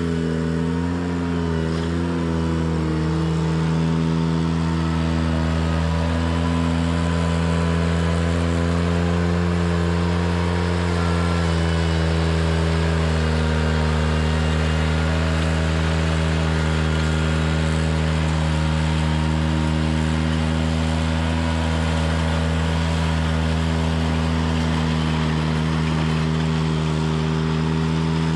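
Ventrac 4520 compact tractor's engine running steadily under work, its pitch wavering briefly about two seconds in.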